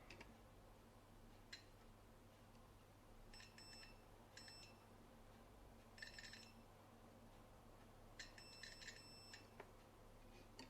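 Digital multimeter's continuity beeper (Sanwa CD771) sounding in four short, broken bursts of high beeping as the probes touch points on the circuit board, with a couple of faint probe clicks before them. The beep signals a low-resistance path: a short.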